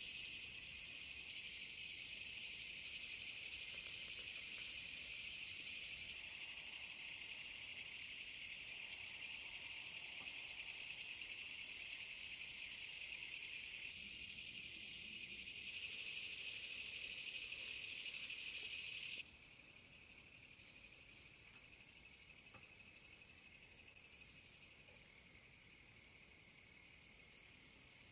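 Night chorus of crickets and other insects: a steady high chirring with a repeating pulsed chirp over it. It changes abruptly a few times and drops in level about two-thirds of the way through.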